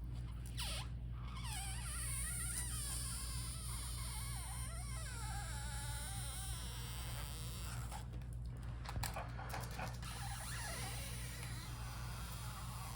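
Adhesive pull-tab strip under a laptop LCD panel squeaking in wavering, whine-like tones as it is stretched and pulled out, mostly in the first half with a shorter spell later, over a steady low hum.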